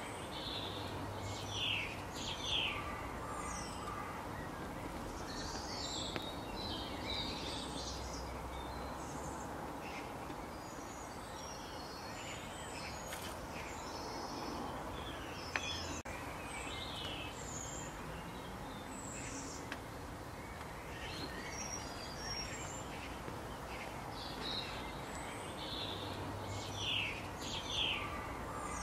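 Outdoor ambience: scattered bird chirps and calls over a steady background hiss, with the loudest bursts of chirping about two seconds in and again near the end.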